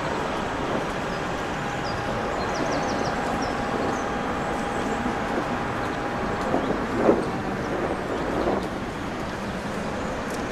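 A steady background rumble and hiss, like distant traffic or ambience, with a few short, high bird chirps about two to four seconds in and a brief louder bump about seven seconds in.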